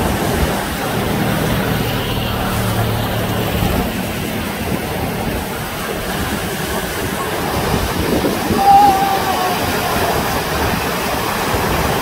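Ocean surf: big waves breaking and rushing steadily onto the shore. A brief high call rises above it about nine seconds in.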